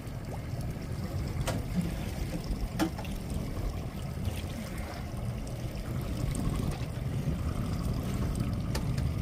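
Water lapping against a fishing boat's hull over a steady low rumble, with a few faint clicks.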